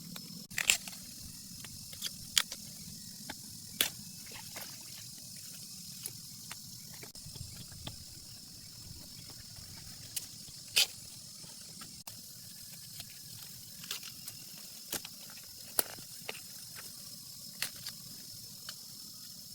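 Rain falling in a forest: a steady high hiss, with large drops striking close by as sharp, irregular taps about a dozen times.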